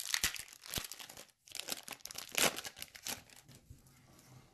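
A 1992 O-Pee-Chee Premier hockey card pack being torn open, its wrapper crinkling in a quick, irregular run of crackles that thins out near the end.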